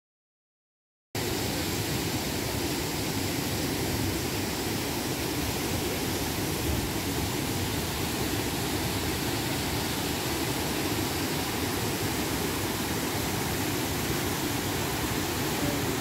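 Waterfall of several cascades pouring over a rock cliff into a pool: a steady rush of falling water that starts suddenly about a second in.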